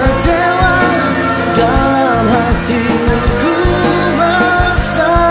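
Background music: a pop-rock song played by a full band, with a melodic line over a steady beat.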